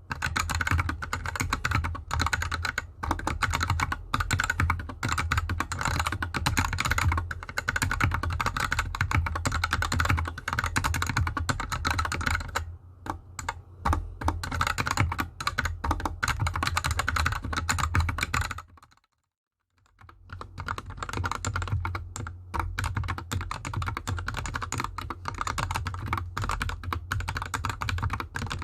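Fast typing on a GK64X hotswap 60% mechanical keyboard with Gateron Yellow linear switches and DSA keycaps, sitting straight on the desk with no mat. The switches are unlubed at first; after a short silent break about two-thirds through, typing resumes on the same switches lubed with Krytox GPL 205 g0.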